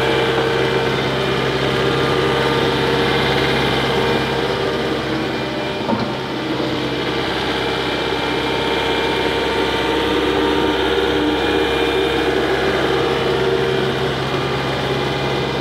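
Diesel engine of a ride-on single-drum road roller running at a steady speed while the roller is driven, with one short knock about six seconds in.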